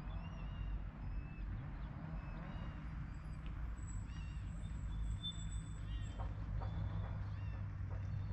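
Birds calling: many short chirps and whistled notes from several birds, with a thin high whistle held for about two seconds in the middle, over a steady low rumble.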